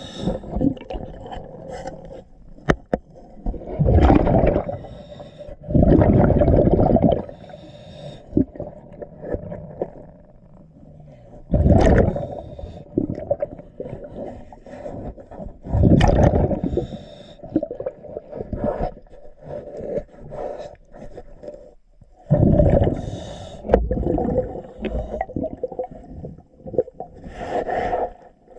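Underwater sound of a diver breathing through a regulator, with a loud rush of exhaled bubbles every few seconds, and quieter scraping and scrubbing against a boat hull in between.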